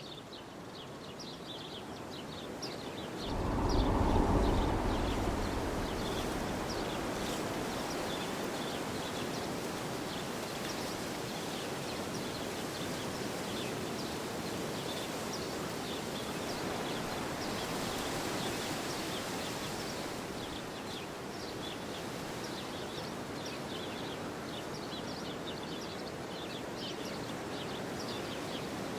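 Strong wind blowing outdoors. About three seconds in, a loud gust buffets the microphone, then a steady rush of wind continues. Small birds chirp throughout.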